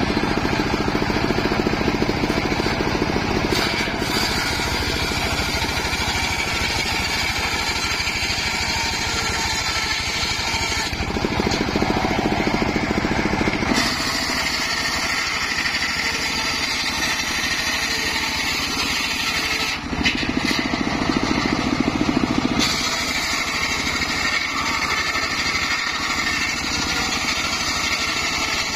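Engine-driven homemade circular saw bench running, its spinning blade ripping a plank of acacia wood. The engine runs steadily under the cut, and the sound changes abruptly several times.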